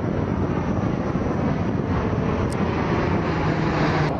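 A C-130 Hercules four-engine turboprop flying overhead: a steady drone of engines and propellers with rushing noise, and a low steady tone standing out near the end.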